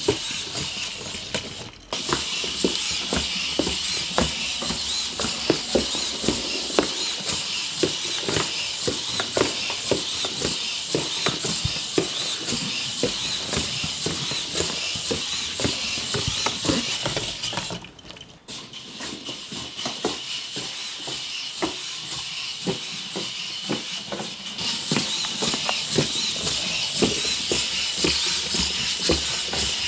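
KHR-3HV humanoid robot walking on a wooden floor: its servo motors give a steady high hiss and whir while its metal feet and joints make a quick run of taps and clicks. The sound drops out briefly twice.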